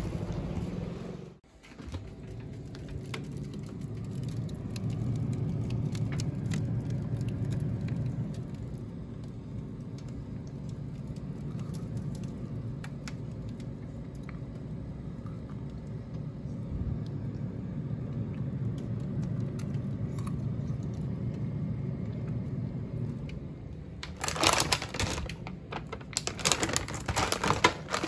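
A steady low rumble, then from about 24 seconds in loud, irregular crinkling of plastic bags being handled in a refrigerator.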